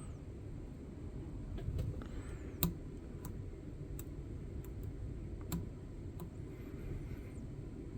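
Lock pick and tension tool working in the keyway of a Master Lock No. 532 cylinder: faint, sharp metal clicks and ticks, about one a second, over a low steady hum.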